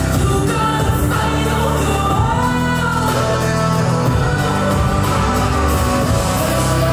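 Loud dance music with a singing voice over a steady bass line.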